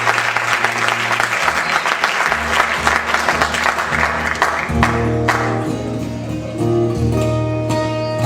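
Audience applause dying away over guitar playing; about five seconds in the applause has faded and the guitar rings on alone, chords over a steady low bass note.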